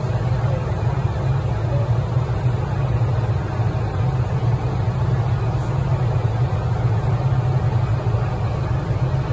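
Fire truck engine running steadily at the scene, a constant low drone with no change in pitch.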